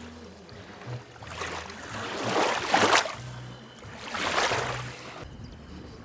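Small waves of a muddy river washing up onto the sandy bank: two rushing swells, each building and falling away over a second or so.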